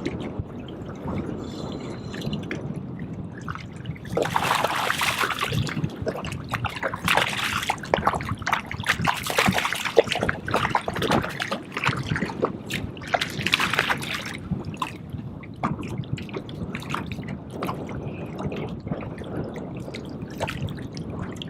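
Water splashing and trickling beside a small boat, louder and busier from about four seconds in until about fifteen, with wind buffeting the microphone.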